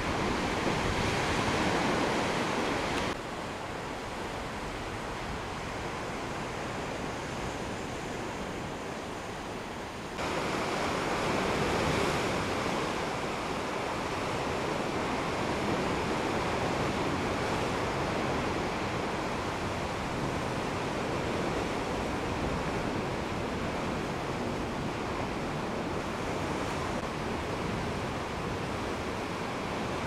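Ocean surf washing steadily against the rocks at the foot of sea cliffs, with wind buffeting the microphone. It drops quieter about three seconds in and rises again about ten seconds in.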